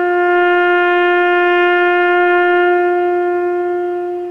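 A horn sounding one long, steady, loud note that fades out near the end, just after stepping up from a lower note.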